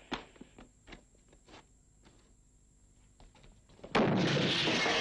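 A few scattered sharp knocks, then about four seconds in a sudden loud explosion that carries on as a thick rush of noise.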